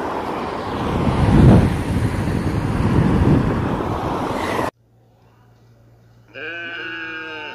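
Wind buffeting the microphone in gusts, cut off abruptly about two-thirds of the way through. After a second or so of quiet, background music with held notes starts.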